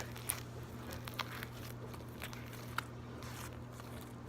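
Borax slime being kneaded and squeezed in the hands, giving a few faint sticky clicks and pops, over a steady low hum.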